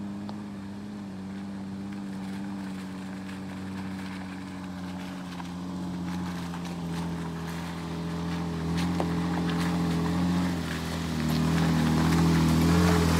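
A 4x4 truck's engine running steadily at low revs while crawling over the trail, revving up a little near the end, with scattered faint clicks.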